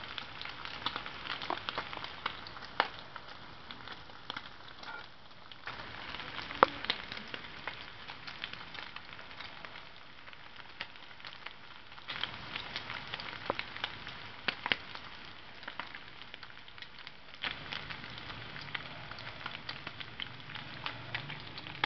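Diced bacon frying in a pan: a steady sizzle with frequent sharp pops and crackles of spitting fat.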